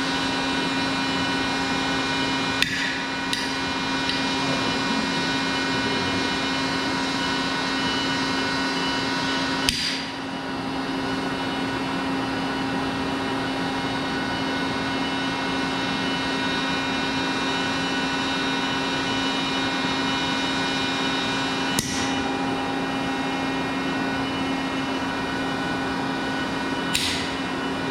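Compression testing machine running with a steady, tonal hum while it slowly crushes a 3D printed re-entrant auxetic lattice. Five sharp snaps come at irregular moments: twice close together near the start, once about ten seconds in, once about twenty-two seconds in and once near the end.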